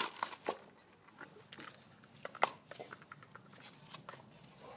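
Drinking from a glass: scattered small clicks of sips and swallows, with one sharper click about two and a half seconds in.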